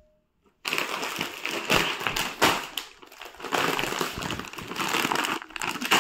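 Plastic snack packaging crinkling and crackling as it is handled: the wrapper of a roll of biscuits and a bag of gathiya. It starts about half a second in, after a moment of silence, and keeps going with many small crackles.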